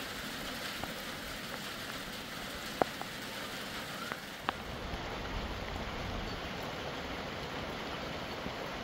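Steady rainfall, an even hiss with a few single sharper drop ticks now and then.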